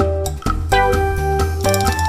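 Instrumental background music: pitched notes starting sharply about twice a second over a steady bass line.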